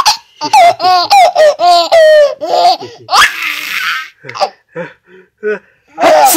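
A baby laughing hard in repeated high-pitched peals. A breathy burst comes about three seconds in, then a few short, quieter sounds before loud laughter starts again near the end.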